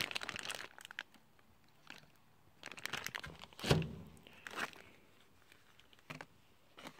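Plastic packaging bags crinkling as bagged parts, among them a wiring harness, are handled in a foam-lined box: irregular crackles and rustles, the loudest a little past halfway.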